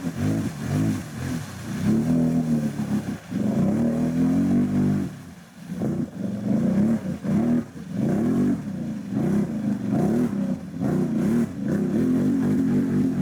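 ATV engine revving hard and unevenly, its pitch rising and falling again and again as it pushes through a deep mud hole, with a brief drop in revs about five seconds in.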